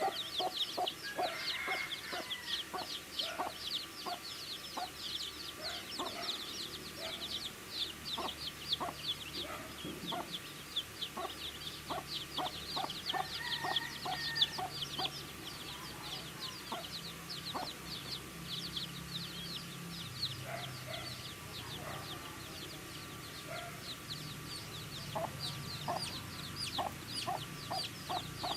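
A brood of baby chicks peeping continuously, many short, high, downward-sliding peeps overlapping several times a second, with scattered soft taps of the chicks pecking at their feed.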